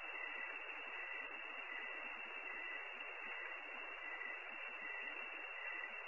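Steady static hiss from a low-quality webcam microphone, with a faint short high tone repeating a little more than once a second.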